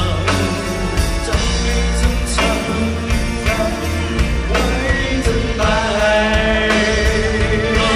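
Live pop-rock song played loud through a concert PA: a band with drums, bass and keyboards, and male singers singing into hand microphones. The sung melody is clearest in the second half.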